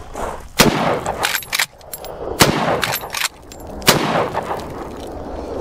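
Three shots from Marlin lever-action rifles, about a second and a half apart, each trailing off in a short echo.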